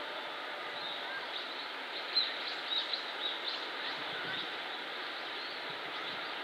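Short, high bird chirps over a steady outdoor noise, with a cluster of them a little after two seconds in.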